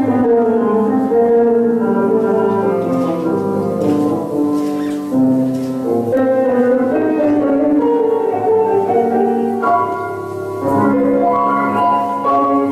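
Recorded Argentine tango orchestra music playing, sustained melodic notes over a steady accompaniment, easing briefly about ten seconds in before the phrase picks up again.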